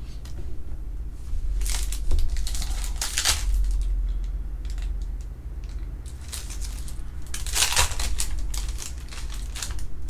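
Trading-card pack wrapper crinkling and tearing as it is handled, in two bouts: one about a second and a half in, and a longer one starting around six seconds in.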